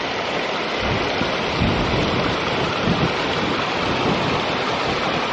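Shallow stream rushing and splashing over rocks in a steady, even rush of water.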